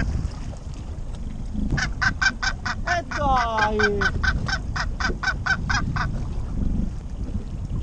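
Northern gannet calling in a fast run of harsh, repeated cries, about four a second for some four seconds, while it is held in the hand after being caught on a trolling lure.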